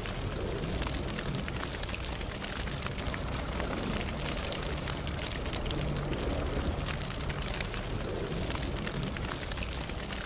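Campfire burning: wood crackling with frequent small sharp pops over a steady hiss and a low rumble.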